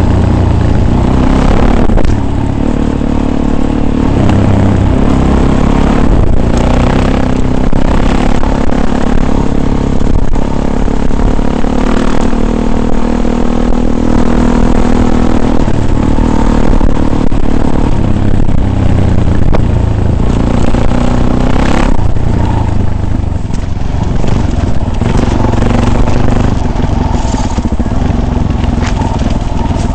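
Off-road motor vehicle's engine running loudly over rough ground, its pitch rising and falling as it revs, with knocks, scraping and clatter from the bumpy terrain.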